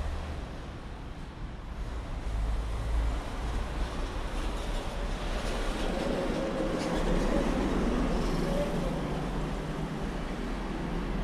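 Street traffic: engines and tyres of cars and motorcycles passing on the road, a steady rumble that swells about two seconds in and again in the second half as heavier vehicles go by.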